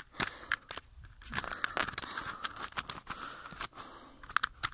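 Irregular clicks and rustling from a hand-held phone being handled while riding a bicycle, over a faint hiss.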